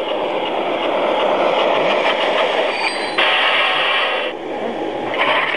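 LGB garden-scale model train running on the track, a steady rolling rumble of wheels and motor. About three seconds in, a louder noisy stretch starts abruptly and cuts off after about a second.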